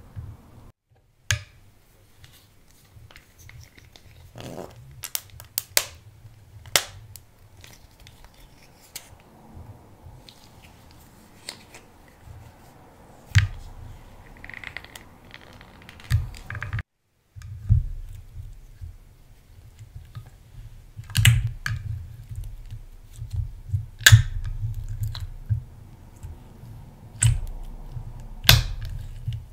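Close-up hand-handling sounds of slime making: scattered taps and clicks as crumbled blush and eyeshadow pieces are handled in a glass container. From about halfway, clear slime is pressed and stretched over the makeup by hand, giving denser sticky clicks and pops. The sound drops out briefly twice, at edit cuts.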